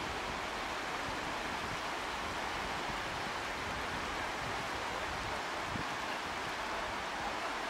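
Steady rushing of wind and surf on an open beach, with low, uneven gusts of wind buffeting the microphone.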